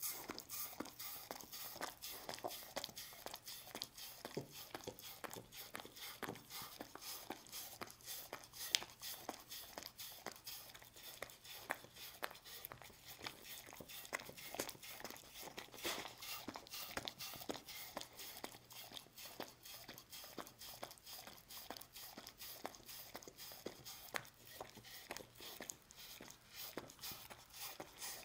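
A dog licking lickable treat paste off a wooden cutting board: quick, wet tongue smacks and clicks, several a second, without a break.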